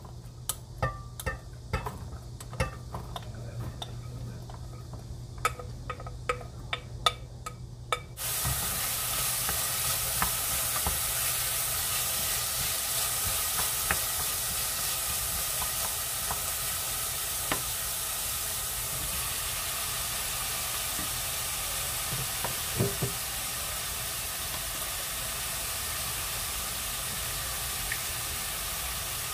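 Diced carrot, celery and onion sautéing in olive oil in a stainless steel saucepan while being stirred with a wooden spoon. For the first several seconds there are only scattered clicks and knocks. About eight seconds in, a steady sizzle starts suddenly and carries on, with an occasional knock of the spoon against the pan.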